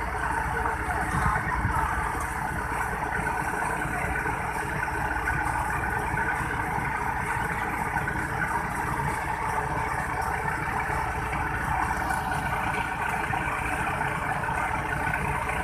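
Diesel engines of heavy farm machinery running steadily, a dense mechanical din with a low rumble and a slight surge about a second in.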